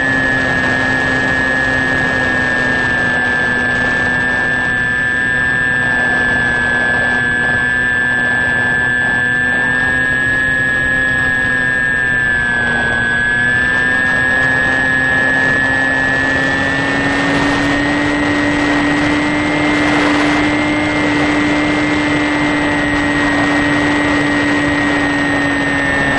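Electric motor and propeller of a HobbyKing Sky Eye RC plane at cruise, heard from its onboard camera: a steady whine with air rushing past. The pitch dips briefly about halfway through, then rises slightly and holds higher as the throttle changes.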